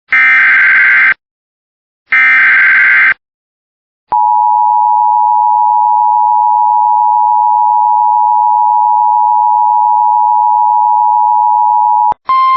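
Emergency Alert System alert start: the last two of the three SAME header bursts, each about a second of screechy digital data tones, then the EAS two-tone attention signal (853 and 960 Hz), held steady for about eight seconds. A different steady tone starts just before the end.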